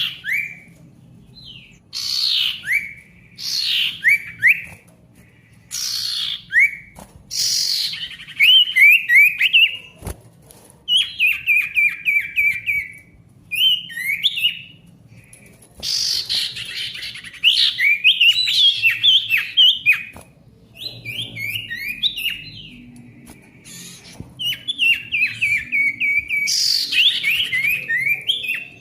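Male sirtu (common iora) singing loudly in repeated phrases. Each phrase opens with a steep falling whistle, then a fast run of sharp chirps, with short pauses between phrases.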